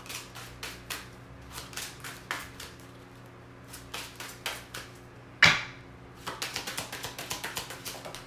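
A deck of oracle cards shuffled by hand: a run of quick card clicks and flicks, with one louder knock about five and a half seconds in and a dense patter of clicks near the end.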